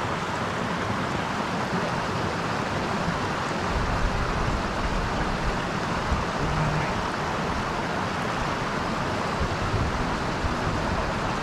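Mountain stream water running steadily over rocks, an even rushing hiss, with an irregular low rumble added from about four seconds in.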